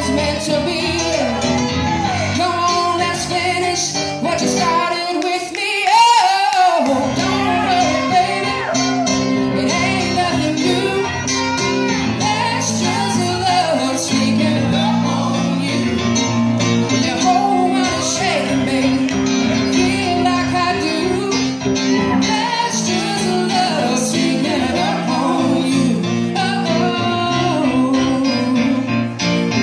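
Live music: female vocals over electric guitar and keyboard. About six seconds in, the low accompaniment drops out briefly under a loud sung note.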